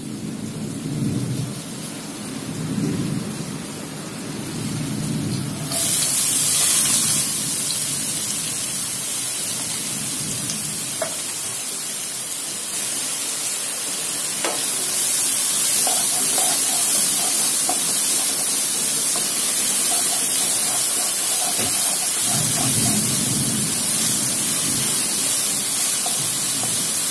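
Chopped onions frying in hot oil in a nonstick kadai: a steady sizzle that turns louder and brighter about six seconds in as the onions hit the oil, with a spatula stirring and scraping the pan near the end.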